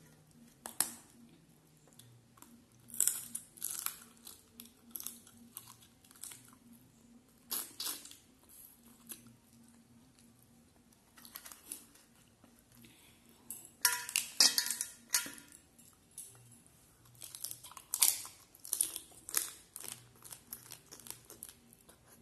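Large cooked prawn being pulled apart by hand, its shell cracking and tearing, mixed with wet chewing and crunching: irregular clusters of short crackles and snaps, the loudest run about fourteen seconds in.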